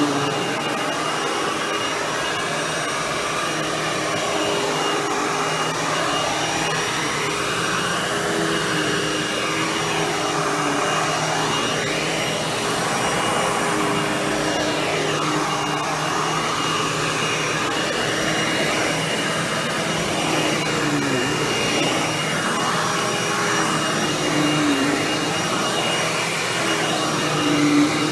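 Hoover WindTunnel Anniversary Edition bagless upright vacuum running steadily, its motor hum dipping briefly in pitch several times as the load on it shifts.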